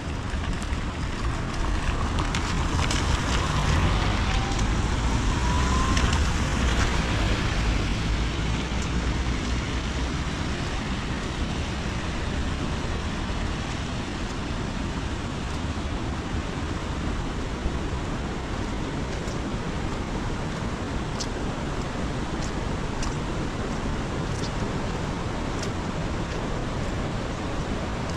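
Steady heavy rain. Over the first several seconds a vehicle passes on the wet road, its rumble swelling and then fading. A few light ticks sound in the second half.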